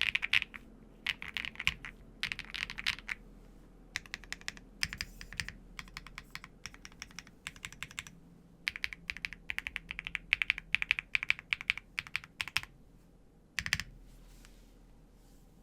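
Typing on a Qwertykeys QK80 Mk2 mechanical keyboard with stock HMX Purple Dawn switches and kfaPBT PBT keycaps on a polycarbonate plate, a deep, poppy keystroke sound. The keystrokes come in quick bursts with short pauses and stop about fourteen seconds in.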